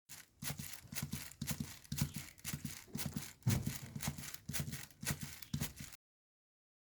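Foley hoofbeats: quick clusters of knocks in a galloping rhythm, about two clusters a second, stopping abruptly about six seconds in.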